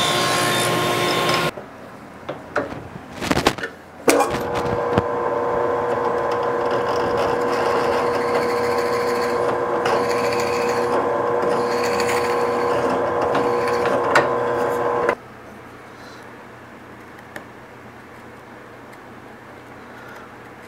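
Table saw running steadily, stopping suddenly about a second and a half in; a few knocks of wood being handled follow, then the saw runs again for about eleven seconds and cuts off abruptly.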